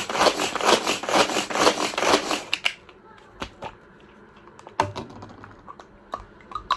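Fast, even rasping strokes, about five a second, from working food by hand, stopping about two and a half seconds in. A few light clicks and knocks of handling follow.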